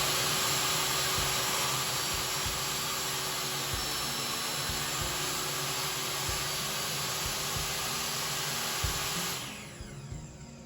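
DeWalt table saw's motor running at a steady whine, then switched off about nine seconds in and winding down.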